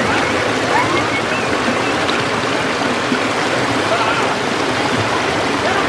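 Stream water rushing and splashing over rocks and small ledges in a steady, loud rush.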